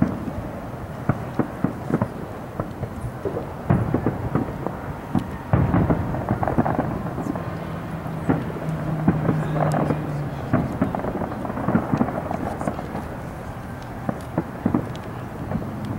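Fireworks display: aerial shells booming, with a dense run of crackling pops, heavier booms about four and five and a half seconds in. A low steady hum sits under the crackle for a few seconds in the middle.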